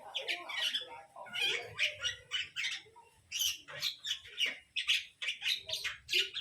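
A tokay gecko giving a rapid series of short, harsh squawks, about two or three a second, the distress calls of a handled gecko.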